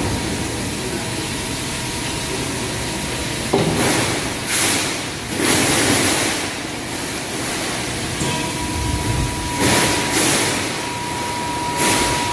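Factory noise at a CNC hydraulic press brake as a large perforated steel sheet is handled and bent: a steady machine hum and hiss, broken by several loud, noisy bursts of a second or less from the sheet metal and the bending strokes. A steady high tone runs through the last third.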